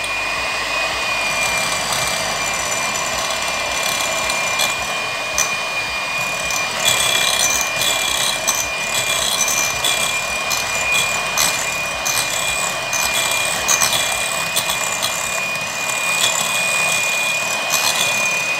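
Electric hand mixer running at a steady speed with a constant high whine, its beaters whipping eggs and sugar to a pale foam while oil is drizzled in. Occasional light clicks are heard over the motor in the middle.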